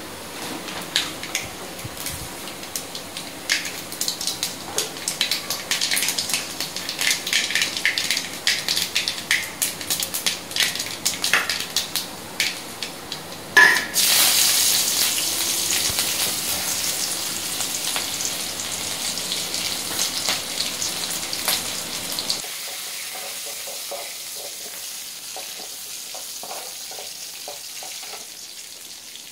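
Greens crackling as they fry in a steel pan, stirred and scraped with a steel ladle. About 14 seconds in, a sudden loud sizzle as chopped onion and dried red chillies go into hot oil in a steel kadai. It fades slowly to a light crackle as the tempering is stirred.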